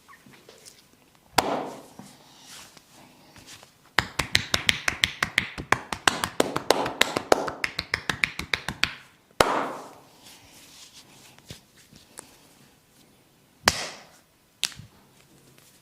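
Hands tapping rapidly on a person's head in a barber's percussive head massage: a fast run of sharp taps, about eight a second, lasting some five seconds. Single sharp smacks come about a second in, just after the run ends, and twice near the end.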